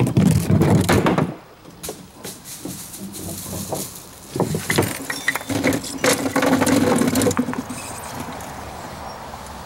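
A string pinsetter hauls 10-inch wooden bowling pins up off a wooden pin deck, the pins clattering and knocking against the boards and each other. The clatter is loudest in the first second, then turns to scattered knocks, with a steady low hum under it for a couple of seconds midway.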